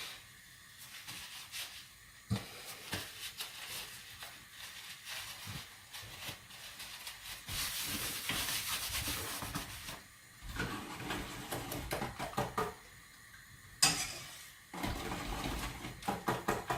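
Kitchen utensils working in bowls and pans: scattered clinks and knocks, a stretch of hissing noise in the middle, one sharp knock, then a fast, regular clatter near the end.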